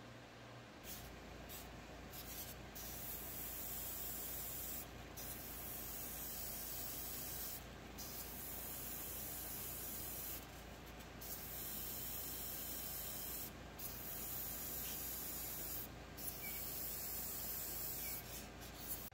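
Airbrush spraying red oxide primer. The air hiss is steady but drops out briefly about ten times as the trigger is let off, and a low hum comes in about a second in.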